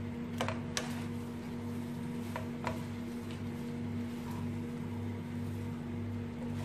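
A few light clicks and taps of a spatula and tongs against a non-stick pan as spaghetti is tossed, over a steady low hum.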